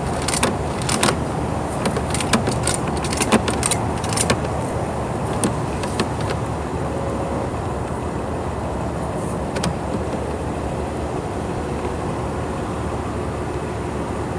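Light metallic clicks and rattles, thickest over the first six seconds, as the sewer camera's push cable is fed forward and jiggled to break up a stoppage. Under them runs a steady low engine rumble.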